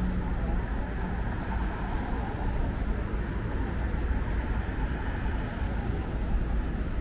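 City street ambience: a steady low rumble of passing traffic.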